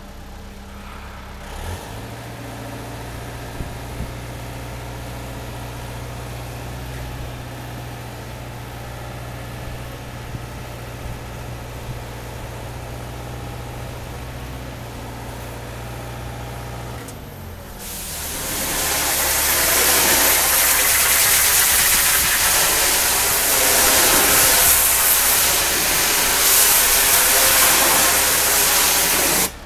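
An engine runs steadily, with a change in pitch about two seconds in. About two-thirds of the way through, a high-pressure water jet starts on a concrete wall with a loud, steady hiss over the engine, then cuts off suddenly near the end.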